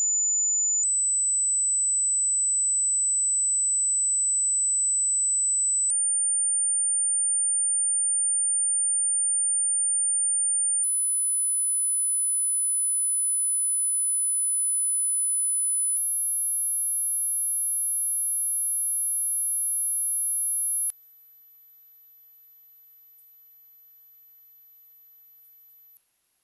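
Hearing-test tones: a single steady, very high-pitched pure tone that jumps up a step in pitch about every five seconds, five times. It cuts off just before the end.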